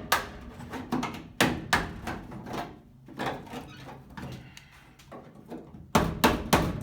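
Hammer blows on car body sheet metal being knocked loose from the frame rail: a few scattered sharp strikes, a quieter gap, then a quick run of blows near the end.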